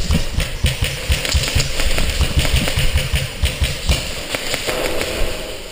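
Airsoft electric rifle (Mk18 AEG) firing in rapid bursts: a buzzing rattle of fast clicks and knocks, dense for about four seconds and then thinning out.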